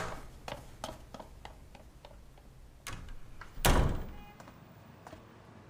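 Quick footsteps on a hard floor, about three short sharp steps a second, followed near the end by a single loud thump.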